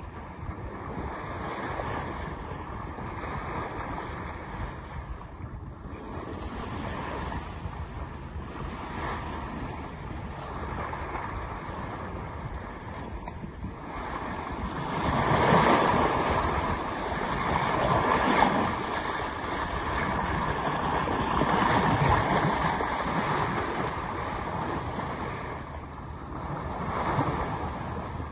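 Sea water rushing and splashing along the hull of a sailing yacht under way, with wind buffeting the microphone. It grows louder about halfway through.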